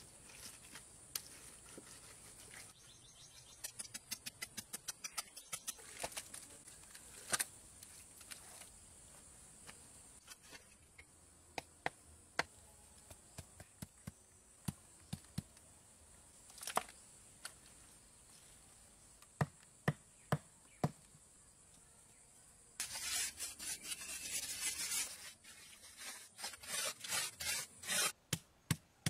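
Hand work on wet concrete and concrete blocks: scattered sharp taps and scrapes, a stretch of rough scraping about three-quarters of the way through, and quick repeated taps near the end. A steady high insect buzz runs underneath until the rough scraping begins.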